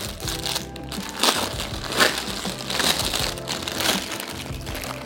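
Clear plastic gift wrap crinkling and crackling in irregular bursts as it is handled and pulled open, over background music.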